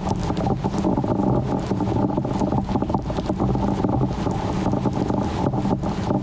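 Steady rushing wind noise on the microphone during a thunderstorm, with a constant low hum underneath.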